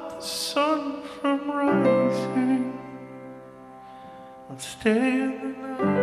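Slow live piano-and-vocal music: a man sings over sustained piano chords. The voice drops out for about two seconds in the middle and comes back in near the end.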